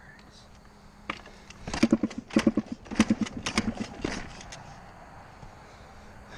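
Dirt bike being kick-started: several kicks in a row, each giving a short sputtering burst as the engine turns over but does not catch, then the sound dies back to a low background. The rider blames a fouled spark plug.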